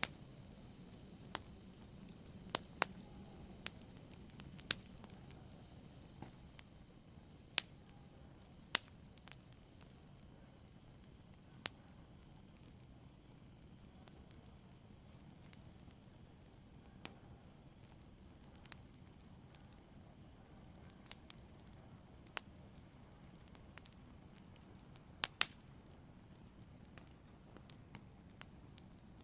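Wood fire burning in a fireplace: a soft steady hiss with scattered sharp crackles and pops from the burning logs, more of them in the first half.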